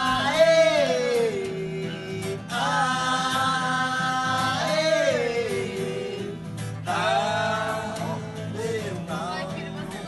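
A man sings three long held "oh" notes, each sliding down in pitch at its end, over a strummed acoustic guitar.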